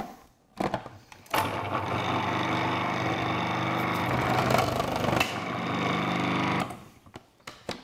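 Sage Kitchen Wizz Pro food processor's motor running steadily for about five seconds, its variable slicing disc cutting a courgette into thicker slices. It starts about a second in, after a few clicks as the lid and feed chute are fitted, and cuts off near the end.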